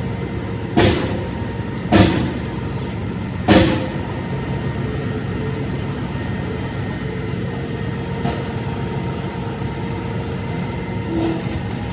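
2016 Triumph Tiger XR's three-cylinder engine idling steadily, with three sharp knocks in the first four seconds.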